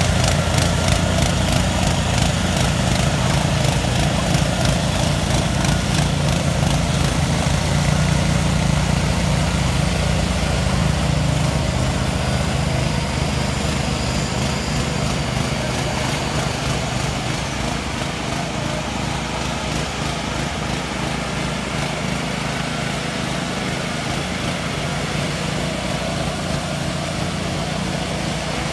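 Engines of ride-on power trowels running steadily as they finish a concrete slab, a low continuous engine hum that eases slightly during the first half.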